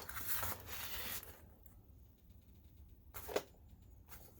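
Handling noises on the projector: a sharp click at the start, soft rustling for about a second and a half, then another short knock about three and a half seconds in.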